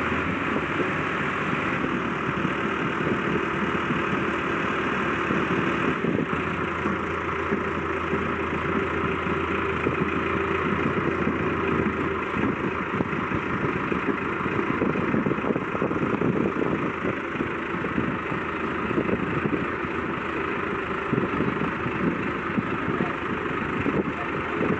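Farmtrac 6055 PowerMaxx tractor's diesel engine idling steadily.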